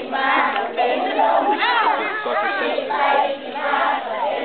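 A large group of young children's voices together, chanting and calling out loudly as a crowd, many voices overlapping.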